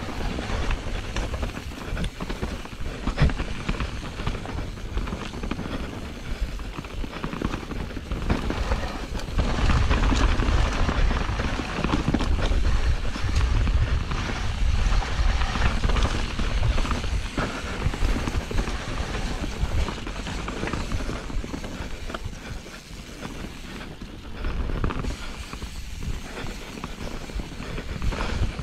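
Mountain bike riding down a rough dirt trail: a continuous rumble of tyres over the ground with many small knocks and rattles from the bike. It grows louder from about nine seconds in and eases again after about seventeen seconds.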